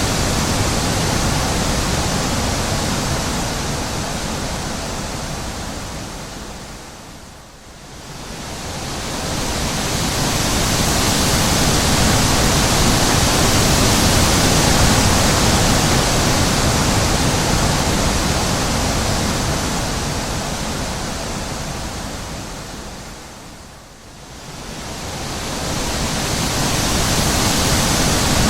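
Wind blowing: a steady rushing noise that swells and dies away in slow gusts, fading almost out twice, about a quarter of the way in and near the end, before building again.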